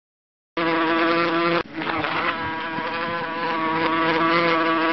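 Housefly buzzing, a steady drone that starts suddenly about half a second in, dips briefly about a second later, then carries on.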